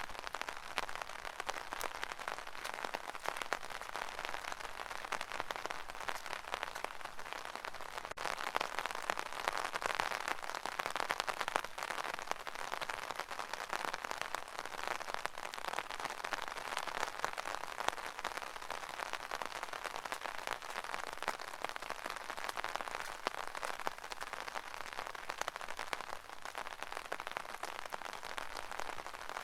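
Rain pattering on an umbrella canopy: a dense, steady patter of many small drops, swelling a little about ten seconds in.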